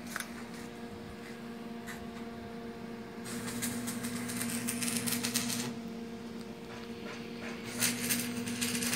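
Steady machinery hum with a clattering rattle that comes in twice: for about two seconds from three seconds in, and again near the end.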